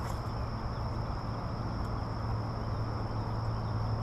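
Steady outdoor background: a constant high-pitched insect drone over a low steady hum, with a faint tick right at the start.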